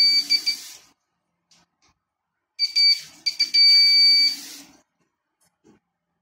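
Electronic buzzer on a homemade Arduino sensor tap giving a steady high beep while the solenoid valve lets water run into the basin: the buzzer signals that the tap is working correctly. It sounds briefly at the start, stops, then comes back about two and a half seconds in after a few short stutters and holds for about two seconds.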